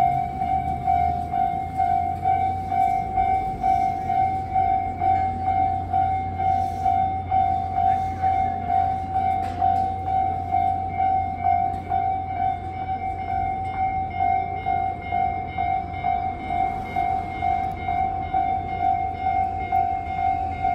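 Japanese railway level-crossing alarm ringing: an electronic bell repeating a steady ding about two and a half times a second, the warning that a train is approaching. A low rumble runs underneath.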